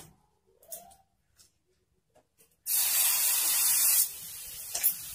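Batter of wheat flour, gram flour and semolina poured onto a hot oiled tawa, sizzling: a sudden loud hiss starts about two and a half seconds in, then after about a second and a half drops to a steady, quieter sizzle. A short click near the end.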